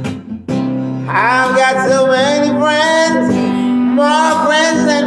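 A man singing long held notes over a strummed acoustic guitar; the voice comes in about a second in.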